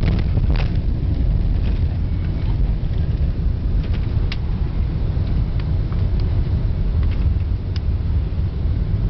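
Loud, steady low rumble in the cabin of a Boeing 747-400 rolling down the runway just after touchdown, its ground spoilers up. A few sharp clicks and rattles are heard, one near the start, one about midway and one near the end.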